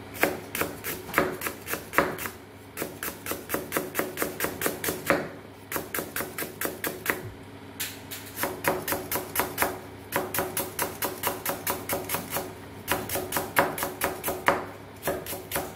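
Kitchen knife slicing lemongrass into thin rounds on a wooden chopping board: quick runs of sharp knocks on the wood, several a second, with short pauses between runs.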